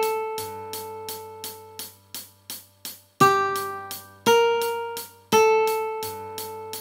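Ukulele melody at about 85 beats a minute: a few single plucked notes, each ringing out and fading, over a steady tick about three times a second.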